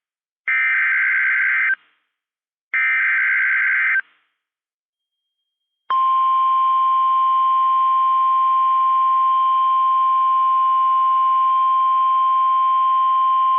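NOAA Weather Radio SAME alert header: two bursts of harsh, buzzing digital data, each a little over a second long, then a pause, then the steady 1050 Hz Warning Alarm Tone starting about six seconds in. This is the signal that a weather warning broadcast is about to follow.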